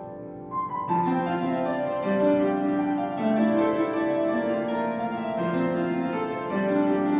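Background piano music: a slow melody of held notes that grows fuller about a second in.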